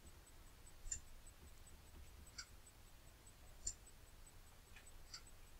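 Near silence with about five faint, short clicks of a computer mouse spread through the stretch, over a faint low hum.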